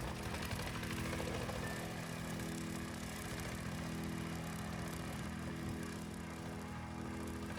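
Truck engine running steadily, a constant low hum with no change in speed.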